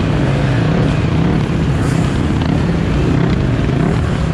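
Off-road dirt bike engine running hard, its pitch rising and falling with the throttle.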